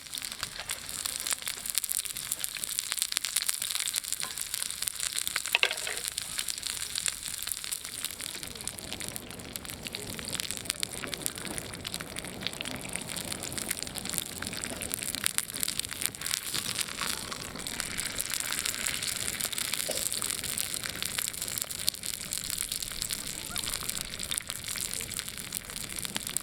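Olive-oil-marinated spareribs sizzling over a wood campfire, a dense fine crackle throughout, with a sharper pop about five seconds in.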